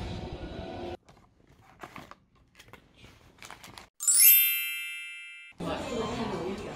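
Bright chime sound effect, a single ringing ding with many high overtones, starting suddenly about four seconds in and fading away over about a second and a half, marking a scene transition. Before it, street noise cuts off about a second in; after it come a restaurant's background noise and clinking dishes.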